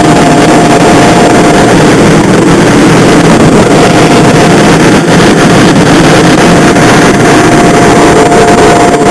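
Electric bounce-house blower running close to the microphone: a loud, steady rush of air with a thin, steady motor whine over it.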